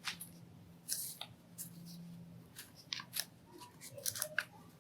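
Origami paper being folded and creased by hand: light, irregular crinkles and crackles of the paper, with a louder crackle about a second in and a cluster of crackles near the end.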